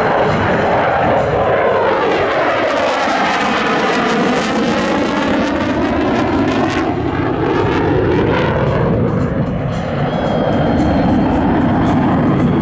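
Jet noise from a Dassault Rafale's twin Snecma M88 engines as it flies past low during a display, loud and steady. A sweeping, phasing whoosh bends down and back up a couple of seconds in as it passes.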